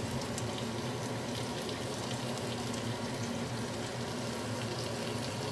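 Eggplant halves sizzling in oil in a cast-iron skillet: a steady hiss with scattered small crackles, over a steady low hum.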